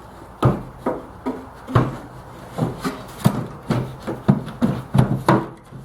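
Irregular wooden knocks and rubbing, about a dozen clunks, from handling the miter saw stand's plywood tip-out scrap bin and its split-PVC-tube hinge.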